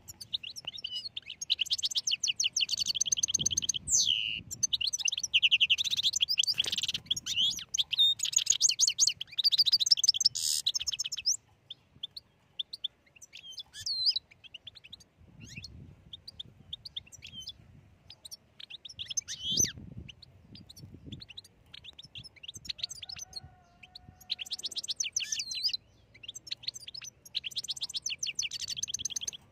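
European goldfinch singing: long runs of rapid twittering trills and chirps for the first ten seconds or so, then scattered single call notes, then two shorter runs of song near the end.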